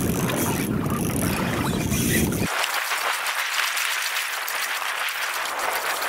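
Wind and water noise on an open skiff: a low wind rumble on the microphone that cuts off suddenly about two and a half seconds in, leaving a steady hiss.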